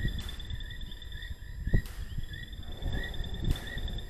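Night insects calling steadily: a fast high trill that drops out for about a second midway, and a lower chirp repeated about three times a second. Irregular low thumps and rustling run underneath.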